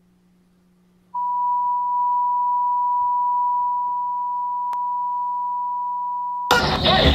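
A single steady high-pitched tone, like ear-ringing, starts about a second in and holds unchanged for about five seconds. Near the end loud music and noise cut in over it.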